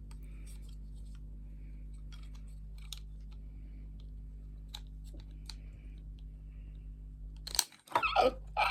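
Faint scattered clicks of small snap-fit plastic model-kit parts being handled and pressed together, over a steady low hum. A louder, voice-like burst comes near the end.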